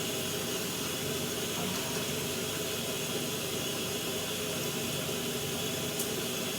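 Shower water running with a steady, even hiss of spray; a brief click sounds near the end.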